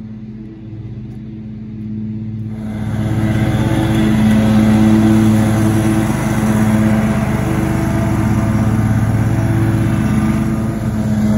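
Ride-on zero-turn lawn mower's engine running steadily as it cuts grass, quieter at first and much louder from about two and a half seconds in.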